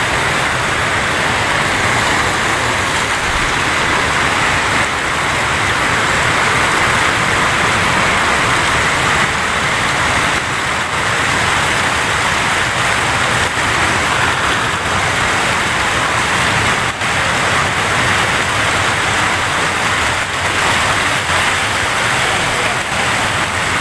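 Water pouring over a river weir and rushing through the stream below it: a steady, unbroken rush of white water.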